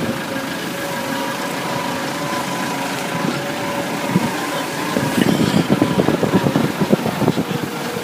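A steady engine hum with a constant pitch, rougher and more uneven from about five to seven seconds in.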